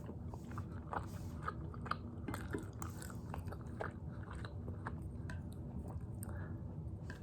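Close-miked mouth sounds of a person chewing spicy tteokbokki rice cakes, with irregular wet smacks and clicks several times a second over a steady low hum.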